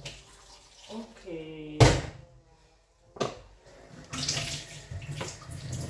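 Water poured from a jug into a countertop blender jar of blended peppers, splashing steadily through the second half. Two sharp knocks come earlier, the first the loudest sound.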